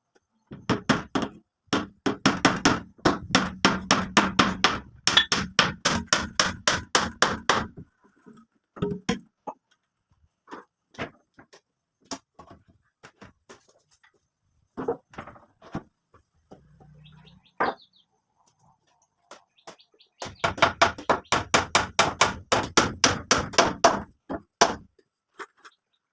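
Rapid hammering, about five blows a second, in two long runs with a few separate blows in between.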